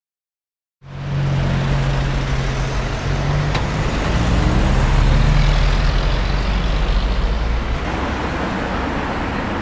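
Street traffic: car and bus engines running with a steady low hum, over road noise. It starts suddenly about a second in, after silence.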